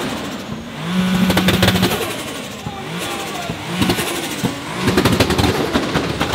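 Turbocharged Toyota Supra MK4 revved hard about a second in, then in a run of short throttle blips, with rapid pops and crackles from the exhaust.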